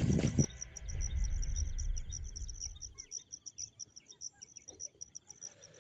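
Insect chirping in a steady run of short, high-pitched pulses, several a second. A low rumble under it fades out about halfway through.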